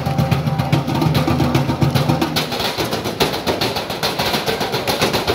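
Galvanized steel trash cans and lids beaten rapidly with drumsticks as percussion, a dense run of metallic strikes. The hits ring deep for about the first two seconds, then turn brighter and higher.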